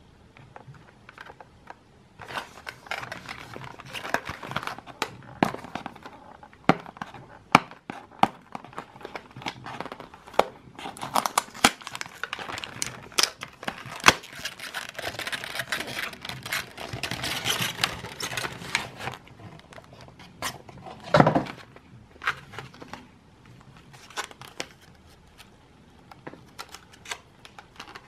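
Cardboard and plastic packaging of a portable hard drive opened and handled by hand: rustling, crinkling and scraping with many sharp clicks and snaps. There is one louder knock about two-thirds of the way through, and lighter handling of the clear plastic tray near the end.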